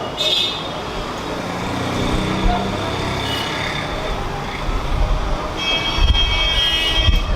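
Road traffic noise from passing vehicles, with a steady rumble and faint voices in the background.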